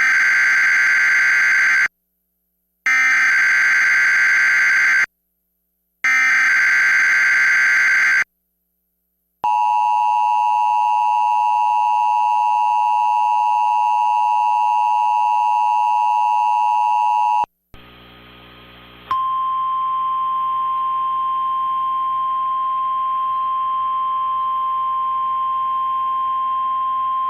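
Emergency Alert System activation tones: three short bursts of screechy warbling SAME header data, then the steady two-tone EAS attention signal for about eight seconds, then, after a brief hiss, a single steady tone that runs about nine seconds before the test message. It signals an incoming tornado warning, here a statewide drill test.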